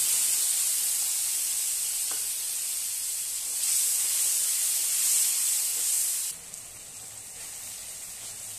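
Wet ginger, cumin and chili paste sizzling hard in hot oil in a kadai as it is stirred. The sizzle eases slowly, then drops suddenly to a quieter sizzle about six seconds in.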